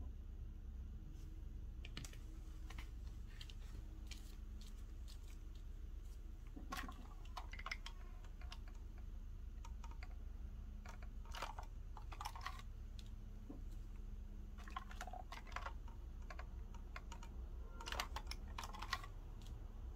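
Quiet, irregular light clicks and taps, some in quick clusters, like typing, over a faint low steady hum.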